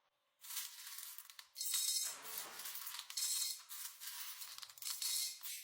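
Music with a thin, hissy sound, starting about half a second in.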